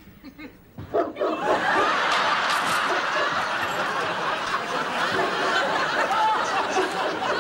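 Studio audience laughing, starting suddenly about a second in and going on steadily.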